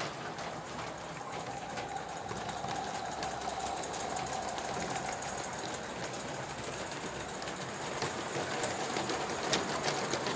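Live-steam G-gauge model of narrow-gauge steam locomotive 99 4701 running with its train: a fast, even chuffing and clicking from the engine and wheels on the track.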